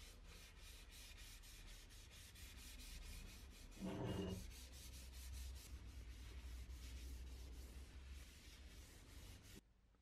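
Paper towel rubbing oil finish into a wooden acacia axe handle in quick back-and-forth strokes, about four a second, faint. One short louder pitched sound comes about four seconds in, and the rubbing stops suddenly shortly before the end.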